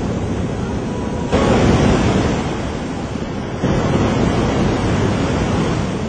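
Loud rushing of tsunami floodwater surging through a street, a dense, steady wash of water noise. It jumps abruptly louder about a second and a half in and again about three and a half seconds in.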